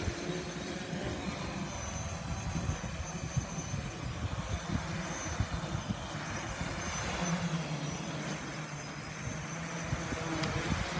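Wind buffeting the microphone. About seven seconds in, the homemade multirotor drone's electric motors start up and keep a steady low hum while it sits on the ground.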